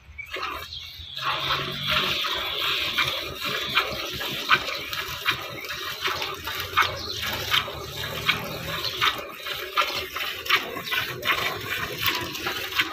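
Cow being milked by hand into a steel bucket: rhythmic squirts of milk hissing into the metal pail, about two or three strokes a second.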